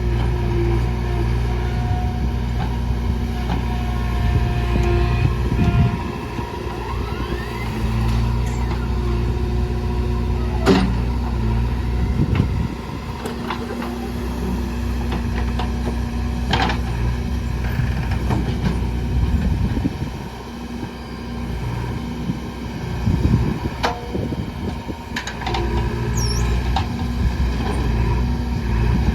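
JCB 3DX backhoe loader's diesel engine running steadily under load while loading murrum into a truck, its note dipping and rising as the machine works. Several sharp knocks and clanks are heard along the way.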